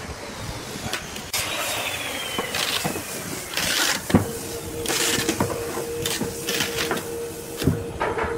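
Flexible plastic sheet mould being peeled away from a cured epoxy resin casting: irregular crackling and rustling, with a couple of sharp knocks. A steady hum comes in about halfway.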